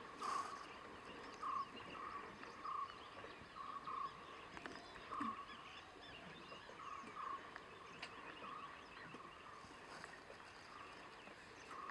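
A wild animal's short call, the same pitch each time, repeated at uneven intervals roughly once a second, over faint scattered chirping.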